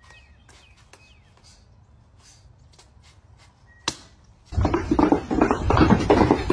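A single sharp smack of a kick landing on a heavy punching bag, with faint bird chirps around it. About half a second later, loud music starts.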